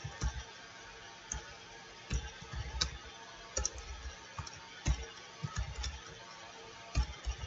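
Computer keyboard being typed on: irregular keystroke clicks, some in quick clusters, each with a soft low thud.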